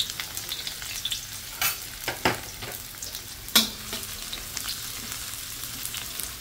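Shallots, garlic and belacan sizzling in hot oil in a stainless steel wok, sautéed until fragrant, with a steady hiss. A spatula scrapes and knocks against the wok several times, the loudest knock about three and a half seconds in.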